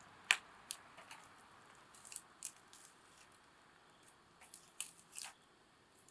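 Wood campfire crackling: a scattering of sharp pops and snaps over a faint hiss, the loudest just after the start.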